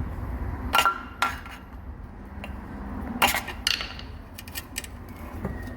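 Hand tools clinking and knocking against steel parts while a handbrake cable is worked off its clip on a car's rear axle: a few sharp metallic knocks, one of them ringing briefly, then a run of small clicks near the end, over a steady low rumble.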